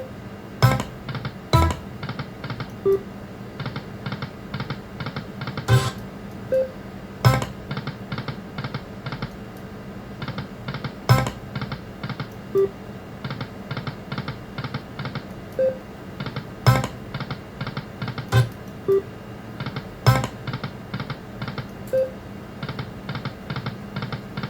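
Lightning Link Best Bet video slot machine running spin after spin: runs of quick short ticks as the reels spin and stop, a short beep about every three seconds, and a sharper loud click every few seconds.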